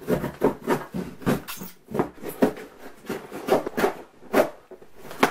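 A large blade stabbing and sawing through a cardboard box, with repeated rasping strokes several a second.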